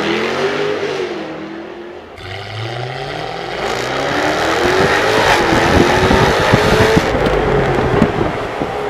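A Jaguar F-Type's engine and exhaust. It revs up and falls back as the car goes past, then it is heard from the driver's seat of the open-top car pulling hard, its pitch climbing, dipping at a gear change and climbing again, with a rapid crackle from the exhaust.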